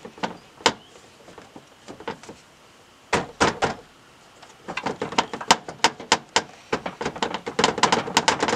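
Hands working the headlight wiring plugs under a car's hood: plastic clicks and rattling. A few scattered clicks come first, then two sharper knocks a little after three seconds, then a quick run of clicking and rattling from about five seconds on.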